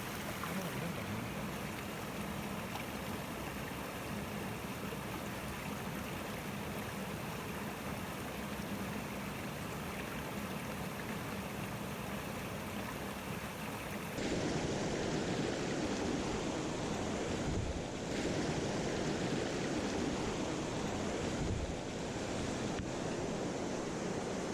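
Mountain stream water rushing steadily. About halfway through the sound shifts fuller and louder, and two brief dull bumps come later.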